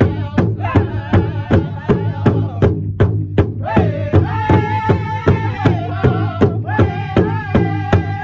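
Powwow drum group singing in unison around a large shared drum, striking it together about three beats a second, with high, held, wavering voices over the beat. Drum and voices break off briefly about three seconds in, then start again.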